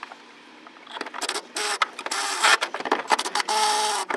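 A cordless drill/driver whines in short runs, with a longer steady run near the end, as it winds screws hard into the truck bed's untapped tie-down holes. Clicks and knocks of the metal bracket being handled come in between.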